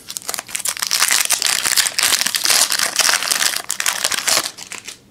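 Foil wrapper of a Panini Prestige basketball card pack crinkling as it is handled and torn open: a dense run of crackles that stops shortly before the end.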